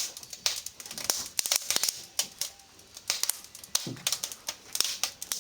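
Wood fire crackling in a fireplace: irregular sharp snaps and pops, several a second.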